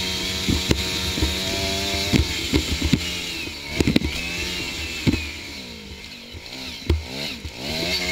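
Small engine of an off-road vehicle running hard at steady revs, then easing off and picking up again near the end as it rides over a rutted snow track. Repeated knocks and rattles come from the bumps.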